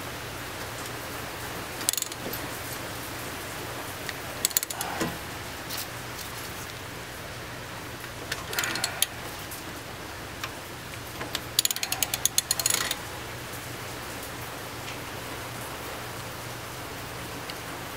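Socket ratchet clicking in four short bursts as it turns the forcing screw of a front-wheel-drive hub puller against a stuck CV axle.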